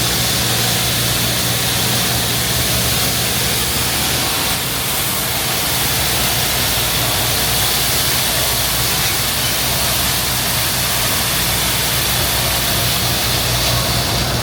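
Truck engine running steadily, with a loud even hiss of road and wind noise over it.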